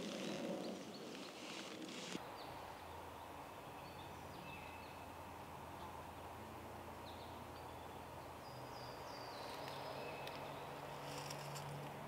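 Spring forest ambience: songbirds singing in short, high, thin notes scattered throughout, over a faint steady low drone. A rustling noise in the first two seconds stops abruptly.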